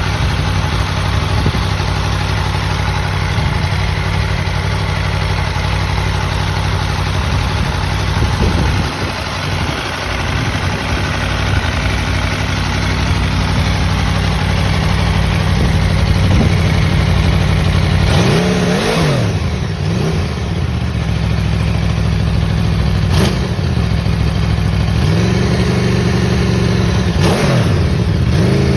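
2021 Aprilia Tuono V4 Factory's V4 engine running through its stock exhaust. It idles and is blipped several times, each rev rising and falling quickly, with the sharpest rev about two-thirds of the way in.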